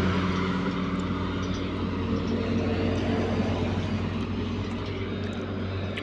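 Diesel engine of a motor grader running steadily as it levels soil, with the sound of highway traffic slowly fading away.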